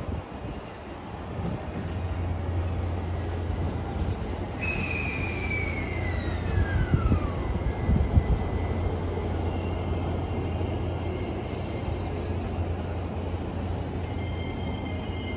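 Electric trains at a station platform over a steady low hum. About four and a half seconds in, a train arriving on the next track makes a falling whine as it slows to a stop, with a few thumps. Near the end, the E257 series 5000 electric multiple unit starts off, giving a set of steady high motor tones.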